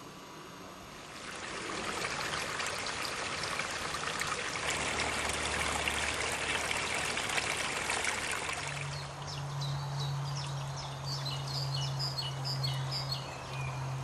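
A small stream trickling and splashing over stones. About eight seconds in the water fades and songbird chirps take over, a quick run of short notes, over a steady low hum.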